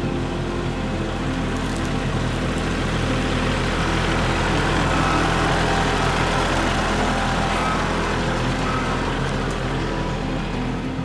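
Kubota compact tractor's diesel engine running steadily as the tractor drives past close by, growing louder toward the middle and then easing off.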